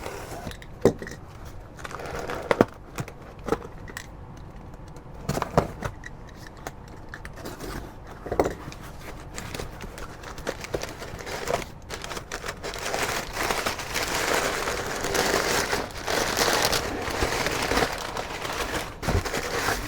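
Plastic packaging crinkling and rustling as parts are rummaged through, with scattered light knocks early on. The rustling grows denser and louder about two-thirds of the way through.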